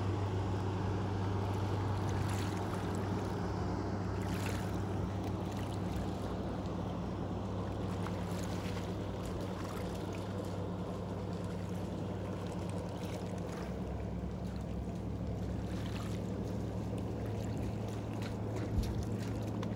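A steady low motor hum, like a boat engine, over lake water lapping and splashing, with scattered small splashes and one short thump near the end.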